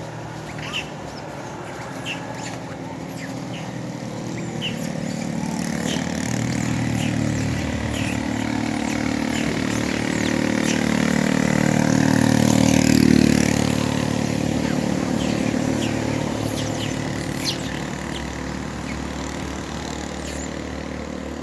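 Engine of a passing motor vehicle, growing louder to a peak about two-thirds of the way through and then fading away, with short high chirps scattered over it.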